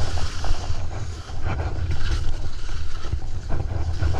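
Black Crows skis hissing and scraping over the snow on a downhill run. A low rumble of wind buffets the action camera's microphone.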